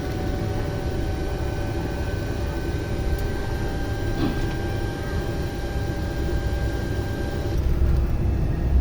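Steady machinery hum: several steady tones over a low rumble. The tones cut off about seven and a half seconds in, and the rumble carries on.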